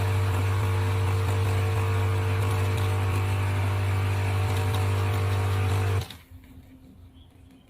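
Capsule coffee machine's pump humming steadily while it dispenses the milk capsule for a cappuccino, then cutting off suddenly about six seconds in when the dose is done.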